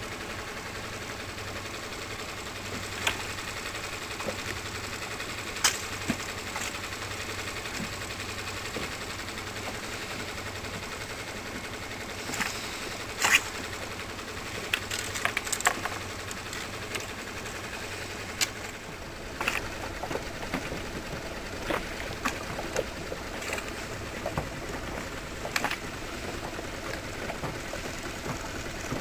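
A small outboard motor idling with a steady hum, its note shifting slightly about two-thirds of the way through. Scattered sharp clicks and knocks of fishing tackle being handled in the boat sound over it.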